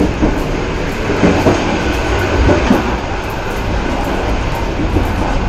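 Moving passenger train heard from the gangway between carriages: a loud, steady rumble and rattle of wheels on track, with a few louder knocks between about one and three seconds in.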